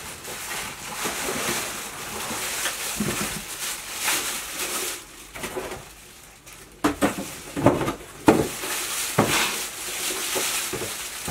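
Packaging being handled: a plastic bag rustling and a cardboard box and polystyrene packing pieces rubbing and scraping, with several knocks in the second half as pieces are set down.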